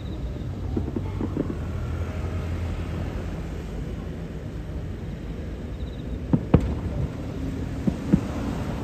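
Fireworks display: a continuous low rumble of shell bursts and echoes, with a few sharp cracks about six and a half seconds in and two more near the end.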